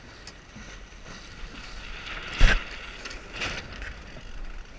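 Water and wind noise aboard a racing sailboat under way, with a loud thump about halfway through and a smaller one about a second later.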